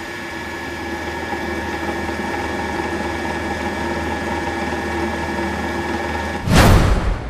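Synthesized intro sound effect: a steady drone of several held tones over a low hum, ending in a loud burst of noise about six and a half seconds in that then fades away.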